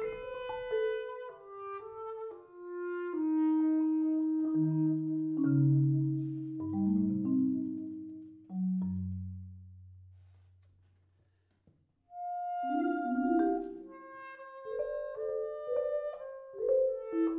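Bass clarinet and marimba duo playing contemporary classical music. Short struck marimba notes give way to long held notes stepping down into a low register and fading out; after a brief pause both instruments come back in with quick struck notes and held clarinet tones.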